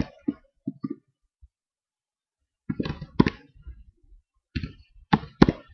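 Computer keyboard keystrokes: typing in short clusters of clicks, with a pause of about a second after the first few.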